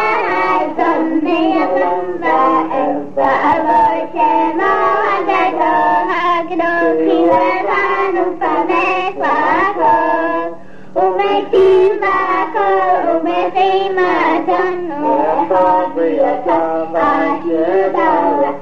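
A child singing a melody in a continuous run of lines, with a short break about ten and a half seconds in. The recording is an old reel-to-reel home tape, with a steady low hum under the voice.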